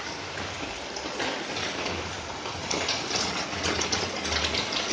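Heavy rain falling, heard from under an umbrella: a steady dense hiss with scattered sharper drop taps.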